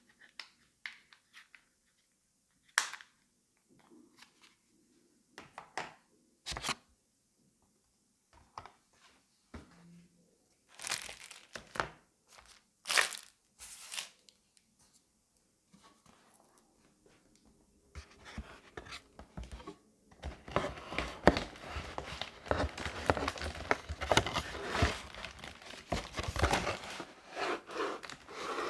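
Unboxing handling noises: a few sharp plastic clicks and short rustles of paper and plastic, then from about two-thirds of the way in a long stretch of loud crinkling as inflatable air-column plastic packaging is handled and pulled from a cardboard box.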